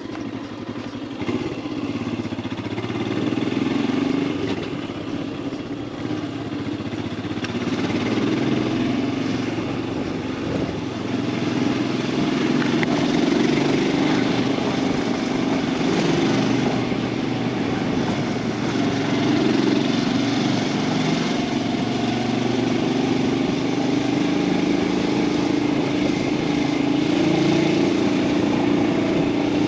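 Royal Enfield Himalayan 411's single-cylinder engine running as the bike is ridden, its note wavering up and down with throttle changes, over a steady rush of wind and road noise.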